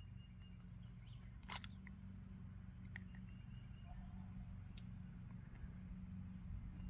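Quiet outdoor ambience with a steady low hum and a few faint sharp clicks, the clearest about a second and a half in.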